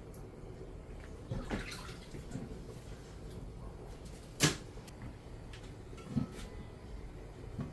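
Kitchen clatter of dishes and utensils being handled at a sink: a few scattered knocks, the sharpest about four and a half seconds in.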